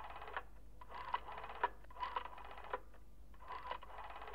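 Rotary telephone dial being turned and released digit after digit: each return is a short whirring run of clicks, some runs longer than others, about three full ones with the tail of another.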